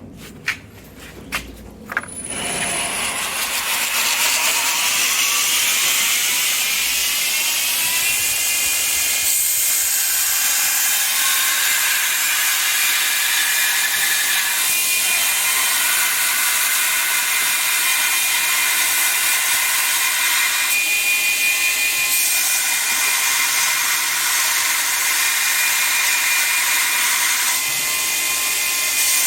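Electric grinder switched on: a rising whine as it spins up over several seconds, then running steadily while grinding metal, its tone shifting every few seconds as it bears on the work.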